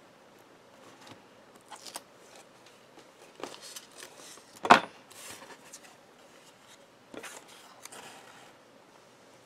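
Paper-crafting handling sounds: cardstock and vellum pieces rustling and sliding on a craft mat while the liner is picked off a strip of adhesive tape, with one sharp knock about halfway through and a few lighter taps.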